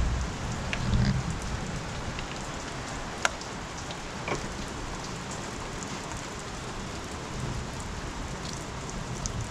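Steady rain falling, an even hiss throughout, with a sharp click about three seconds in and a softer one a second later from plastic connectors and hose fittings being handled in the engine bay.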